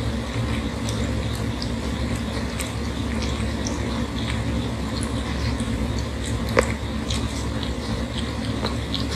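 A cat licking another cat's face and head: a run of small wet licking clicks, with one sharper click about six and a half seconds in, over a steady low rumble.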